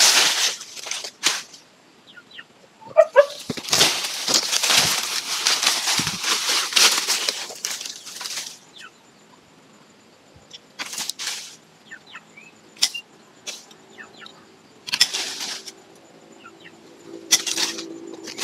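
Leafy lychee branches rustling and swishing in bursts as they are grabbed, shaken and pulled during pruning: one long burst, then several short ones.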